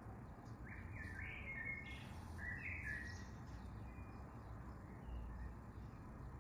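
Song thrush singing a short burst of brief notes in the first half, then falling quiet, over a steady low rumble.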